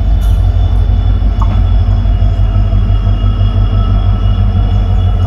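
WDP4D diesel-electric locomotive approaching with its train, its EMD 16-cylinder two-stroke diesel engine making a loud, steady low rumble.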